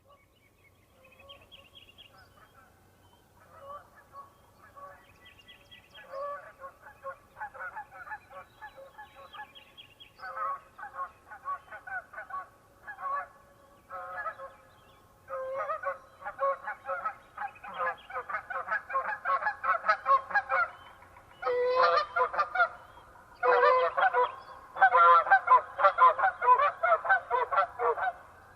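A flock of geese honking in flight, faint at first and growing steadily louder, the calls overlapping into a dense chorus in the second half.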